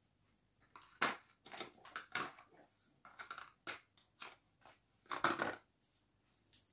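Irregular crinkling, rustling and light tapping from a small cardboard box being handled, in a dozen or so short, uneven bursts.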